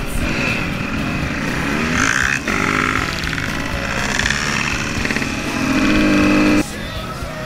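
Dirt bike engine running and revving up and down as the bike rides along a rough gravel trail, heard loud and close from the rider's own machine. The sound drops off sharply near the end.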